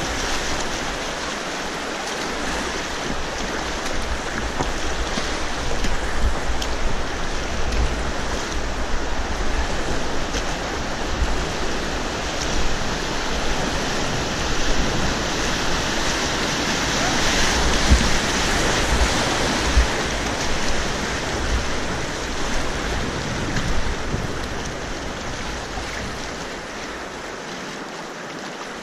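Whitewater rushing and splashing around an inflatable kayak running riffles and small rapids, with low irregular rumbles underneath. The rush eases off over the last few seconds as the water calms.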